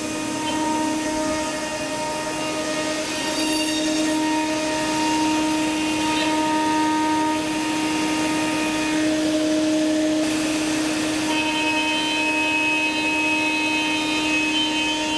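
CNC router spindle running a half-inch downcut spiral bit through a wooden blank, a steady machine whine with several held tones, over the running vacuum pump that holds the blank down. The tone shifts about ten seconds in.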